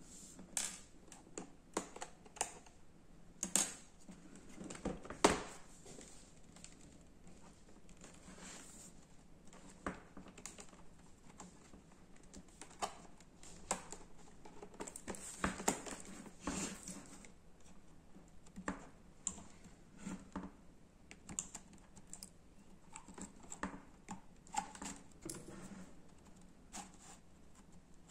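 Irregular plastic clicks, taps and knocks from hands working the underside of a ThinkPad laptop: prising at the side hard-drive bay and sliding the hard drive out in its caddy near the end. The loudest knock comes about five seconds in.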